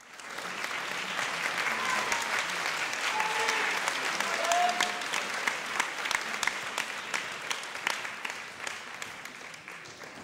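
Audience applauding in a large hall, with a few short cheers rising out of the clapping; the applause starts suddenly, swells, then slowly dies down near the end.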